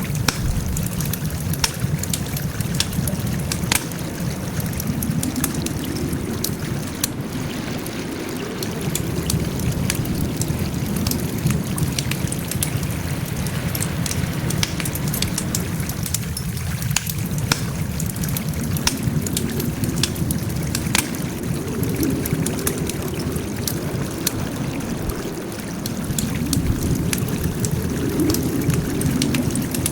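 Wood fire burning: many sharp crackles and pops, irregular and frequent, over a steady low rush of flames that swells and eases every few seconds.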